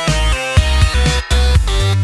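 Electronic dance music with a heavy bass beat and synth notes.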